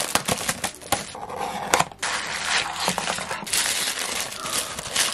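Clear cellophane wrap crinkling and crackling as it is peeled off a small cardboard mystery toy box, then tissue paper rustling as the figure inside is unwrapped, steadier from about two seconds in.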